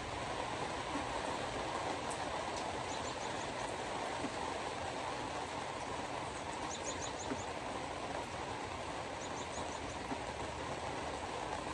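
Steady road and tyre noise of a car driving on a wet highway, heard from inside the cabin. Short runs of faint, quick, high ticks come through about three times.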